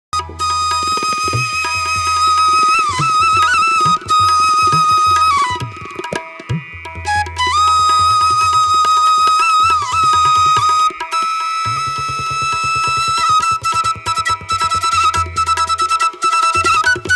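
Background instrumental music: a sustained, gliding melody over a low held tone and a steady hand-drum rhythm.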